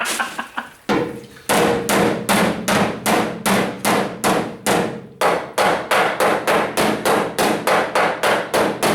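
Hammer blows on the steel bedside of a pickup in a quick, steady series of about three a second, the sheet metal ringing with each strike, as the dent is worked.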